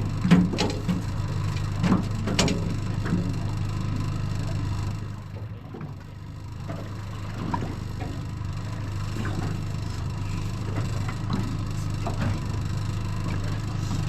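A boat's Yamaha 75 outboard motor running at a steady low hum, with several sharp knocks on the boat in the first few seconds.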